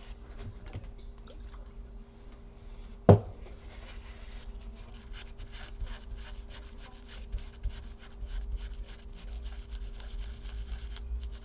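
Quick rubbing strokes of old thermal paste being wiped off a laptop cooler with alcohol, starting about four seconds in, with one sharp click about three seconds in.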